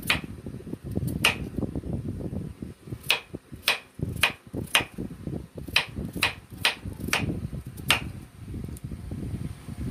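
Kitchen knife slicing a peeled potato into rounds on a wooden cutting board, each cut ending in a sharp knock of the blade on the board, about ten knocks at an uneven pace.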